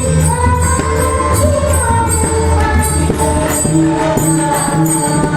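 Varkari bhajan music: pakhawaj and tabla drumming in a steady rhythm, with small hand cymbals ringing on the beat over a sustained melodic line.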